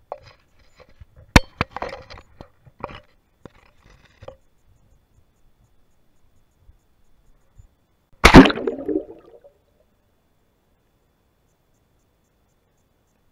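Knocks and clicks against a cheap action camera's housing as it is handled on a rope tied to a rock, then one loud hit and splash about eight seconds in as the camera is thrown into the lake.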